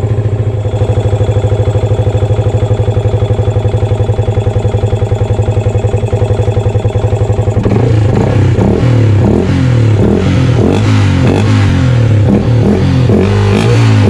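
Yamaha FZ150i's single-cylinder fuel-injected engine idling steadily with an even rapid pulse, running on its first start after a throttle body and injector cleaning. About eight seconds in, background music with a steady beat takes over.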